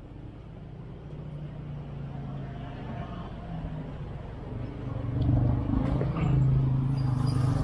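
A motor vehicle's engine running nearby, a low steady hum that grows louder about five seconds in, over street background noise.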